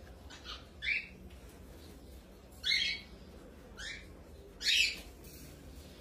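Cockatiels calling: five short squawks about a second apart, the loudest near the middle and toward the end.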